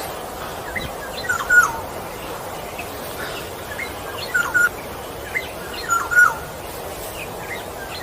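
Bird calls: short chirping phrases with quick falling notes, repeating every second or two over a steady hiss of background noise.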